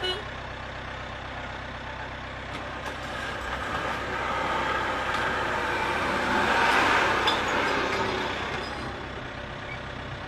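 Vehicle engine idling steadily, with a rushing noise that swells from about three seconds in, peaks near seven seconds and fades away.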